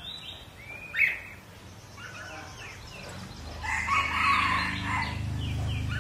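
Red-whiskered bulbul giving a short rising call about a second in. A louder, longer stretch of calling follows from about three and a half seconds in, over a low steady hum.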